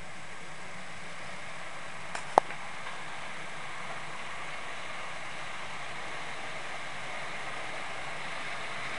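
Model trains running on a home layout's track, a steady rolling hiss that grows a little louder in the second half, with two sharp clicks a little over two seconds in.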